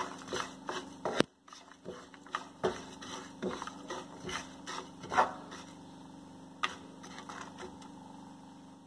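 A spatula stirring and scraping peanuts, sesame seeds and dry coconut powder as they dry-roast in a pan, in irregular clicks and scrapes, over a steady low hum.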